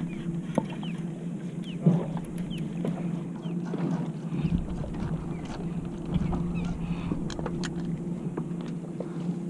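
Boat motor running with a steady low hum, while seabirds give many short, high chirping calls and a few light clicks sound.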